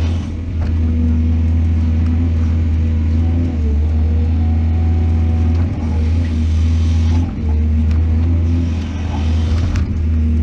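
Heavy diesel engine of a mining excavator running steadily with a loud low drone, dipping briefly in level a few times.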